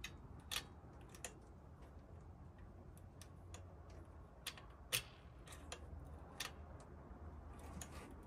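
Faint, irregular light clicks and ticks of small metal parts being handled: the throttle linkage on a 79 cc four-stroke engine is worked by hand while the engine is not running. Two sharper clicks stand out, about half a second in and about five seconds in.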